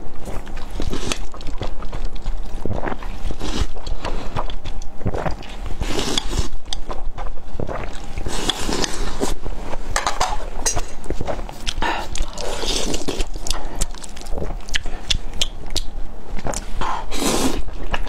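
Close-miked slurping and chewing of sticky, sauce-coated spicy fire noodles: a continuous run of wet slurps, mouth noises and sharp clicks.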